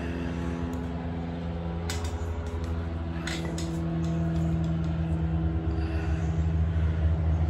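Steady low mechanical drone with a few even pitched tones, slowly shifting in pitch, and two sharp clicks about two and three seconds in.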